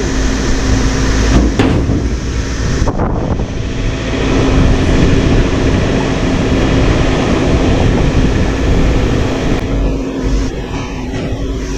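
Diesel engine of heavy equipment running steadily with a constant hum, with two short knocks about a second and a half and three seconds in.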